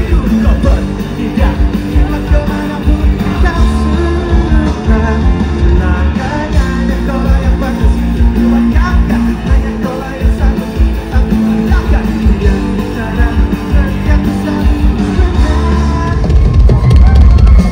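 Indonesian pop-rock band playing live with singing, electric guitars and drums, loud and heard from inside the audience.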